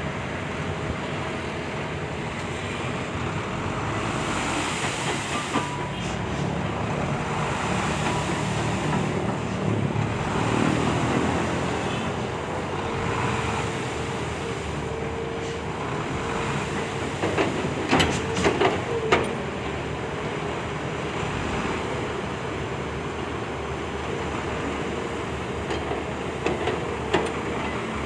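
Volvo hydraulic excavator working: a steady engine drone with a faint whine joining a little before the middle, and a quick run of metal clanks about two thirds of the way in.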